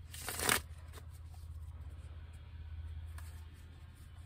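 Tarot cards being shuffled in a short crackling burst at the start, followed by a few faint card clicks, over a steady low hum.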